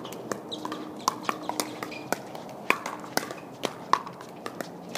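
Scattered short pops of pickleball paddles striking the plastic ball, coming irregularly, several close together at times, each with a brief hollow ring.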